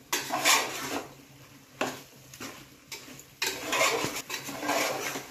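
Raw meat pieces being mixed by hand with spice powders in an aluminium pot: wet squishing and rustling in several bursts, the longest near the end, with light clinks of the metal pot.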